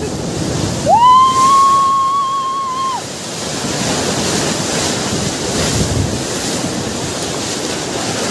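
Bono tidal bore wave crashing over the riverbank, a loud steady rush of churning, surging water. About a second in, a person's long high scream is held for about two seconds.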